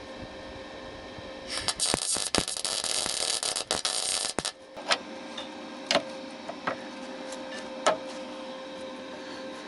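MIG welder laying a short weld: a crackling hiss lasting about three seconds, followed by several sharp clicks over a steady low hum.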